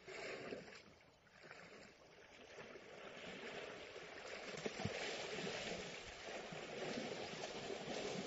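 Water splashing and sloshing as elephants bathe, getting louder after the first few seconds, with a sharp thump about halfway through.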